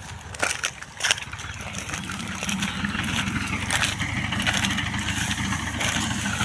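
A motor engine running steadily, growing louder from about two seconds in. In the first second or so there are short, sharp crackles of dry wheat straw being handled.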